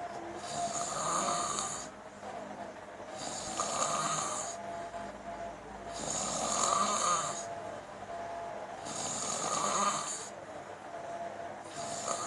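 A person snoring in a steady rhythm, one loud, hissy snoring breath about every three seconds.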